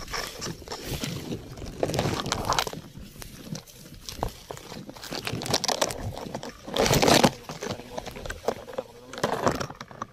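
Leaves and plant stems rustling and brushing against the phone as it is pushed through the foliage, in irregular bursts, loudest about seven seconds in.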